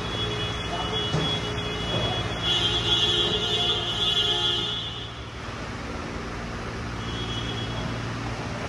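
Car service workshop noise: a steady low hum under a high whining tone that grows louder for about two seconds, a few seconds in, and comes back faintly near the end.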